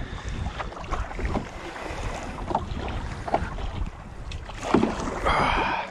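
Strong wind buffeting the microphone as a canoe is paddled through choppy water, with small waves and paddle strokes splashing against the hull and a louder rush of water near the end.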